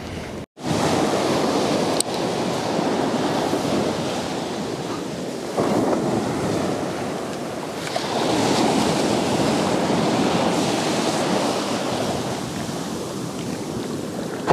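Waves breaking and washing up a sandy beach, a steady surf that swells louder about eight seconds in.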